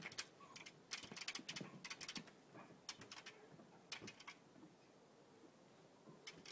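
Faint bursts of sharp clicks and taps, about one cluster a second for the first four seconds and one more near the end: a dog's claws clattering on a hard floor as it jumps up and down over and over, heard through a glass door.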